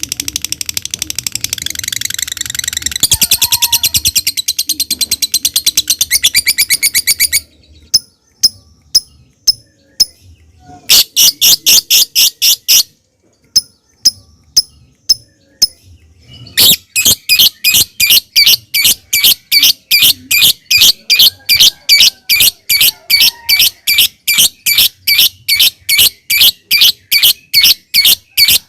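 Lovebird singing: sparse, sharp ticking calls (ngetik) that break into long runs of rapid, shrill repeated chirps (ngekek). A long run stops about a quarter of the way in, then come single ticks and a short run, and a long unbroken run takes over a little past halfway.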